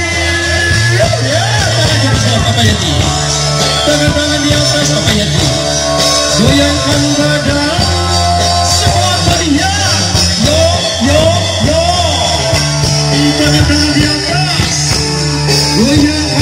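Loud amplified singa dangdut music from a speaker stack: a singer's bending melody over a steady bass line, running without a break.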